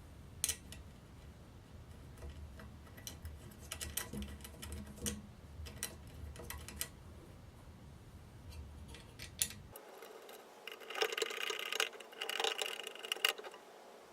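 Small metal hardware being handled: scattered clicks, taps and light clinks at an irregular pace. About ten seconds in, the low background hum cuts out abruptly, and a quicker run of clinking follows.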